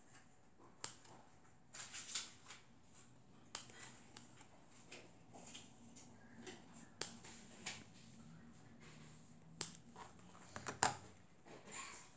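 Scissors snipping a paper cutout: scattered crisp snips, one every second or two, with a sharper knock near the end.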